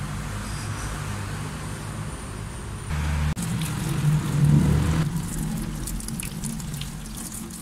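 Tap water running and splashing over a clutch master cylinder body as it is rinsed in a metal sink, starting about three seconds in. A steady low vehicle hum lies under it throughout.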